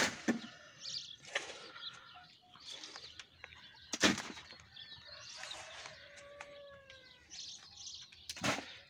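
Irregular rustling and flapping noises with a few sharp knocks. A few short bird calls come about two-thirds of the way through.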